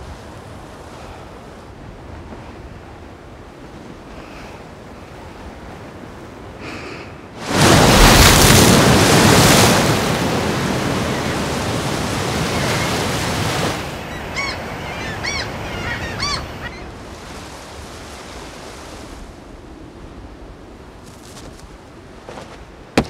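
Waves breaking on a windy shore. About seven seconds in the surf swells up loud for several seconds and then eases back. Over it, birds call repeatedly for a couple of seconds, and a single sharp click comes just before the end.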